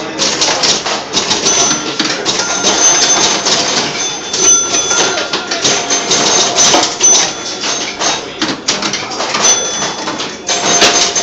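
1964 Gottlieb Bowling Queen electro-mechanical pinball machine in play: a dense, continuous clatter of relays, flippers and pop bumpers, with short bell-like scoring tones ringing out again and again.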